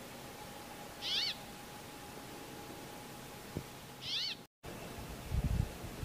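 Brambling calling twice, about three seconds apart, each a short call that rises and falls in pitch. A brief low rumble near the end.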